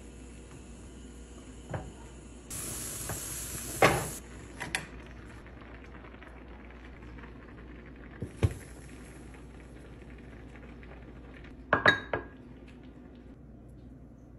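Clinks and knocks of an earthenware pot and kitchen utensils, the loudest about four seconds in and a quick cluster near the end. There is a hiss for about a second and a half just before the loudest knock, and a low thud partway through as the pot is set down on a wooden board.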